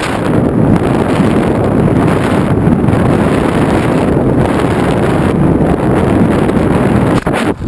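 Loud steady wind rush buffeting the microphone of a camera on a flying FPV model aircraft. It breaks up and falters in the last half second.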